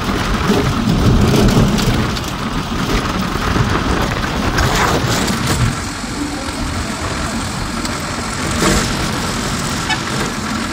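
Jeep engine running as the vehicle drives along, mixed with steady road and wind noise.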